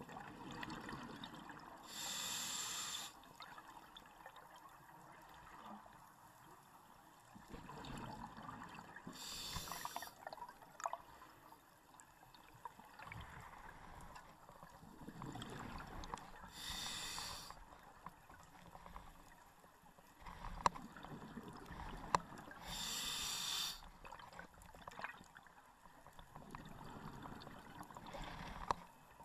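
A scuba diver breathing through a regulator underwater, in a steady cycle about every seven seconds. Each breath brings a short hiss and a low bubbling rumble of exhaled air.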